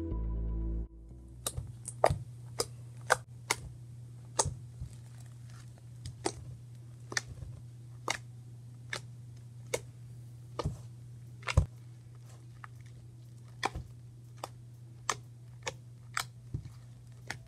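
Hand-squeezed slime full of water gel beads, giving sharp, irregular clicks and pops about once or twice a second over a steady low hum. Background music cuts off about a second in.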